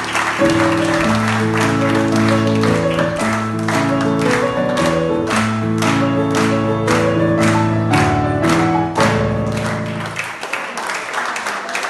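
Scottish country dance music with a steady beat plays over audience applause. The music stops about ten seconds in while the clapping goes on.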